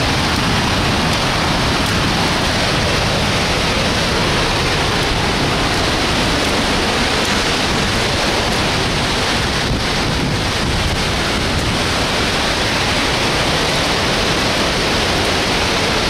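A waterfall close by: a loud, steady rush of falling water and spray with no let-up.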